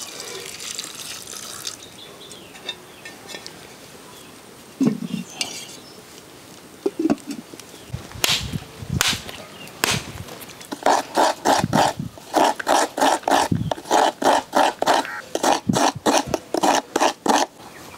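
Water poured into a pot of sliced ivy gourd, then a few sharp knocks as a coconut is struck to split it. Then quick, even scraping strokes, about three a second, as the coconut half is grated by hand.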